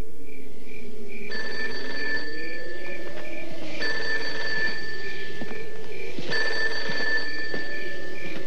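A telephone ringing three times, each ring about a second long and about two and a half seconds apart.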